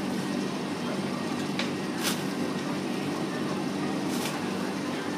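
Steady supermarket background noise: a constant hum with faint indistinct voices, and three brief swishes about one and a half, two and four seconds in.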